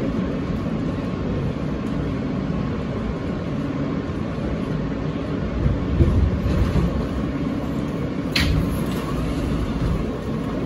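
Inside an R160-type New York City subway car as it runs on the rails: a steady low rumble of wheels and motors while the train pulls into a station. A brief sharp screech comes about eight seconds in.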